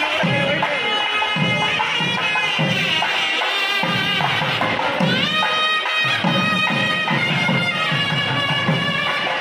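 South Indian temple procession music: a nadaswaram's sustained, gliding double-reed melody over steady thavil drum beats.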